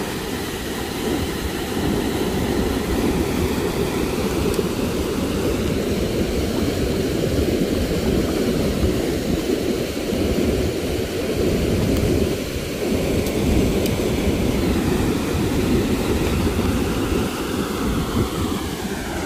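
Steady, loud, low rushing noise of fast-flowing river water.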